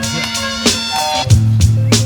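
Hip-hop beat playing without vocals: regular drum hits over held melodic notes, with a deep bass line coming in partway through.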